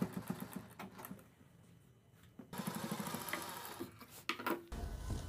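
Domestic sewing machine stitching fabric strips onto a neckline: a fast, even run of needle strokes that stops about a second in, then after a short pause a second brief run of stitching about two and a half seconds in.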